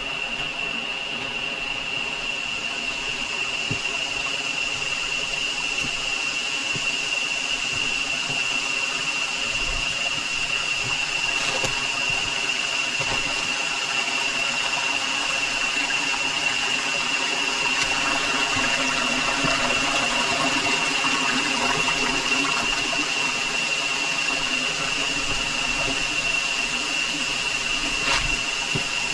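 Rainforest insects droning on one steady high note, over the even rush of flowing stream water.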